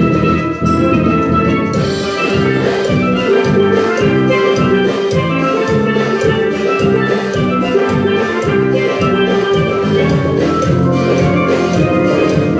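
Steel drum band playing live: a group of steel pans, from small lead pans to full-size bass pans, playing a tune with a steady beat.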